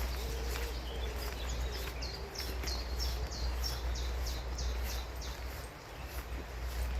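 A songbird singing a run of about a dozen quick, high, down-slurred notes, three or four a second, over a steady low rumble.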